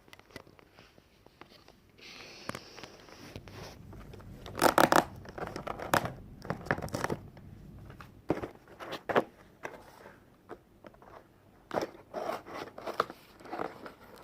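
Packaging of a ring light being opened by hand: tearing and crinkling, loudest about five seconds in, followed by a run of short clicks, knocks and rustles as the parts are handled.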